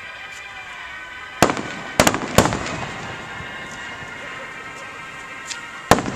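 Aerial fireworks bursting. A single bang comes about a second and a half in, then a quick cluster of bangs with crackling around two seconds, and one more sharp bang near the end.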